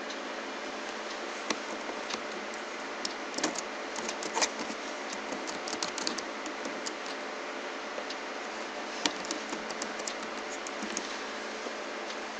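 Computer keyboard being typed on in scattered, irregular key clicks over a steady hiss, with one louder key press about nine seconds in.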